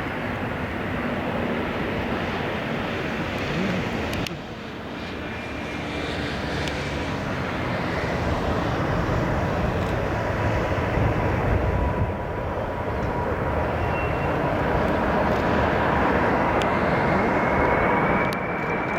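Jet engines of a Boeing 747-400 airliner running as it comes in to land, a dense roar with a steady whine, growing louder through the middle and with a rising whine near the end.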